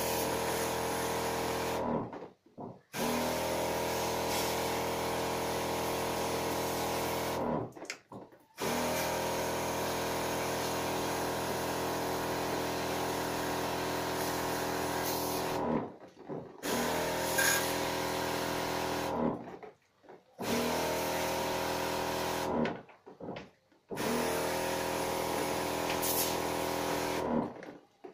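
Electric pump of a battery-powered sprayer running in about six stretches of a few seconds each, stopping briefly in between: a steady motor hum with the hiss of the water spray, used to wash an air conditioner's indoor coil.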